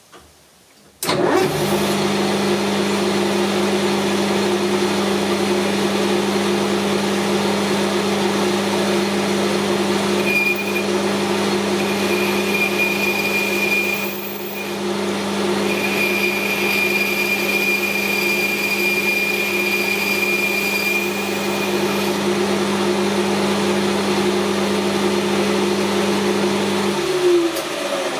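Metal lathe switched on about a second in, running steadily while a boring bar takes a light trial cut inside the workpiece. A thin high whine comes and goes through the middle of the run. Near the end the lathe is switched off and winds down.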